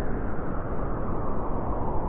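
Winter wind blowing steadily, a low rushing noise that wavers in loudness and grows a little brighter toward the end.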